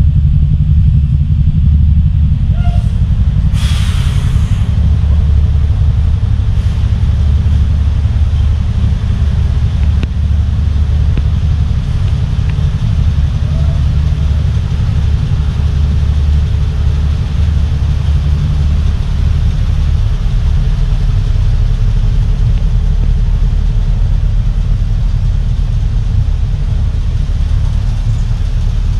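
Steady low rumble of the Lite Cat 2 catamaran ferry's engines running under way, heard throughout its vehicle deck, with a brief hiss about four seconds in.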